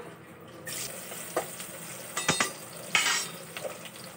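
Sliced onions dropped into hot oil in an aluminium pressure cooker start sizzling about a second in, with a few sharp scrapes and knocks of a utensil against the pot as they are stirred.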